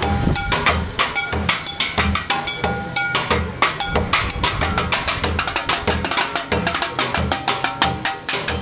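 Music with a steady, fast drum-kit beat: bass drum thumps about twice a second under snare hits and quick strikes.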